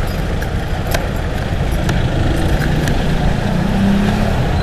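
Motorcycle engine running at low speed under a heavy low rumble, with a brief rise in engine pitch near the end.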